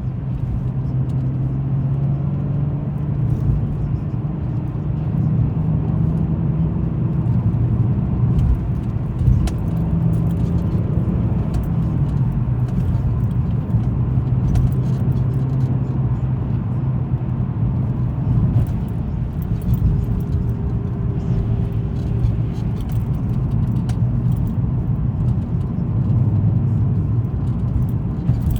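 Car driving on a road, heard from inside the cabin: a steady engine hum that shifts in pitch a few times as the speed changes, over tyre and road noise, with scattered light ticks.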